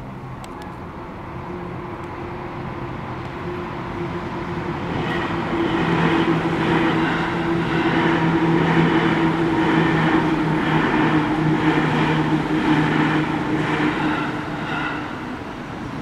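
Electric commuter train passing over a level crossing, growing louder over the first few seconds with a steady hum and an evenly repeating clatter, then easing off near the end.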